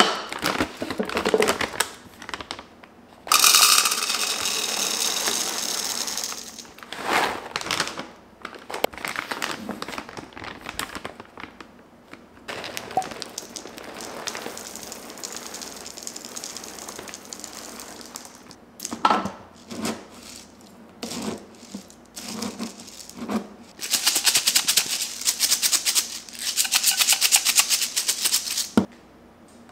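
Dry cat kibble poured from a bag into a tall plastic container: a dense rattling clatter of pellets, loudest in a long pour about three seconds in and another near the end, with scattered clicks and bag rustles in between. Background music plays underneath.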